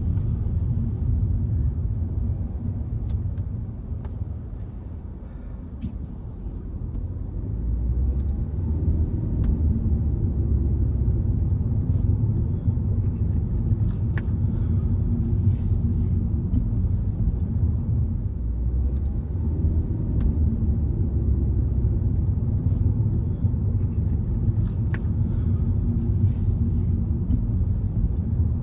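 Car driving on city roads: a steady low rumble of engine and road noise. It eases off for a few seconds about four seconds in, then builds back up.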